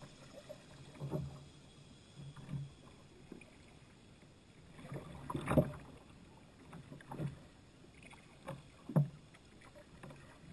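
Kayak paddle strokes: a handful of dull knocks and splashes as the paddle dips and bumps the kayak's hull, coming irregularly every second or two. The loudest is about halfway through, with another strong one near the end.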